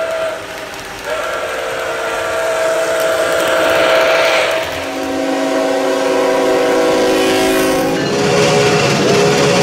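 Steam locomotive whistle blowing long chime blasts. One several-note chord is held from about a second in, a lower, fuller chord follows from about halfway, and near the end the whistle changes to a wavering, bending tone.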